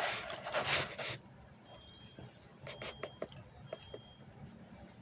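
A person chewing food close to the microphone, with small wet clicks and smacks of the mouth. For about the first second there is a louder rustling noise that cuts off suddenly.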